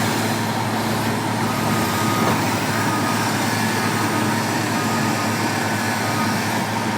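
Heavy road-construction machinery engine running steadily, a continuous low engine hum over a broad rushing noise.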